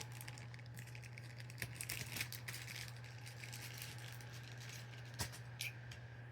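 Light handling clicks and rattles as the thread of a freshly sewn hem is cut with scissors: a cluster of small clicks about two seconds in and one sharp click past five seconds, over a steady low hum.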